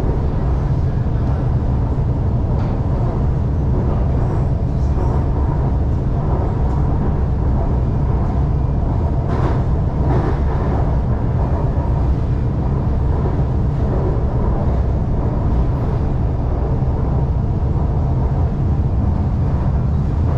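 Shanghai Metro Line 2 train running along the track, a steady low rumble heard from inside the train.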